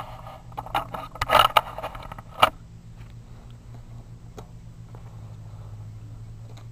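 Plastic K'nex catapult parts clicking and rattling as it is handled, ending in one sharp knock about two and a half seconds in. After that only a steady low hum remains, with a few faint clicks.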